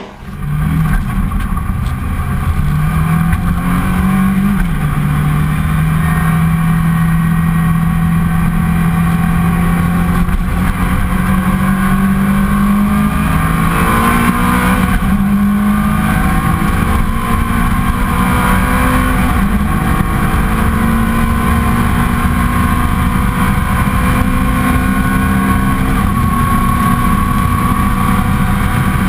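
Ferrari 430 GT3's V8 engine under hard acceleration, heard from inside the cockpit: its pitch climbs steadily through each gear and falls suddenly at several upshifts, over a rumble of road and wind noise.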